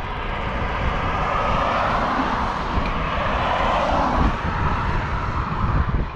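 Wind buffeting the microphone while riding a road bike at speed, with a motor vehicle passing on the road, its rush swelling in the middle and fading toward the end.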